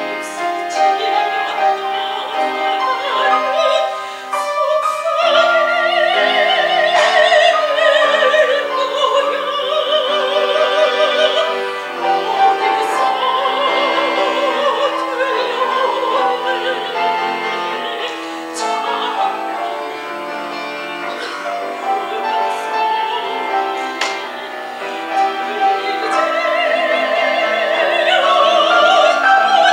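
Soprano singing a Korean art song in operatic style with wide vibrato, accompanied by a Samick grand piano. There is a short lull about four seconds in, and the voice swells louder near the end.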